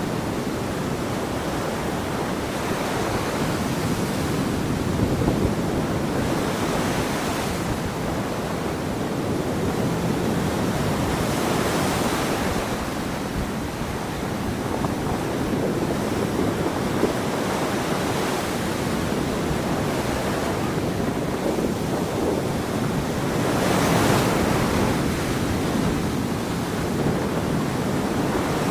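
Ocean surf washing onto a beach: a continuous rush of water that swells louder every few seconds as waves break, with wind on the microphone.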